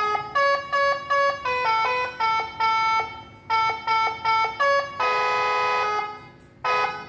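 Electronic telolet (basuri) horn module playing a melody through a toa horn speaker: a run of short, clear-pitched horn notes, then one long held note about five seconds in that fades away before the notes pick up again near the end.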